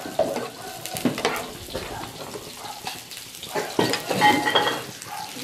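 Pieces of pork rib sizzling in a frying pan in oil and the excess water that is still cooking off, with a spatula stirring and scraping them in short clicks.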